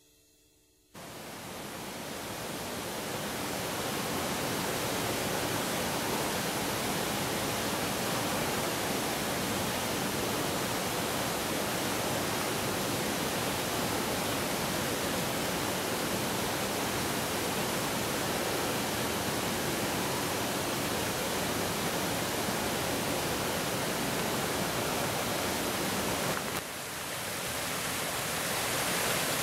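Steady rushing hiss of water from a small waterfall and stream. It dips briefly near the end, then comes back a little louder.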